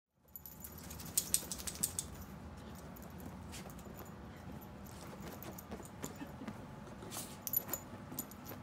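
A freshly bathed, wet Yorkie Poo rubbing and rolling on a fabric couch. Short bursts of small metallic jingling come about a second in and again near the end, over a steady low hum.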